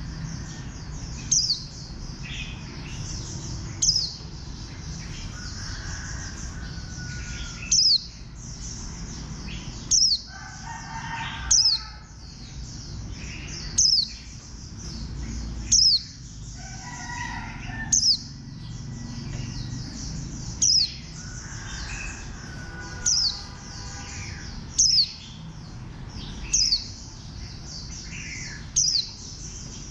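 White-eye (vành khuyên) calling: a sharp, high note that drops in pitch, given about every two seconds over a steady high twittering. Fainter, lower fowl-like calls come in now and then.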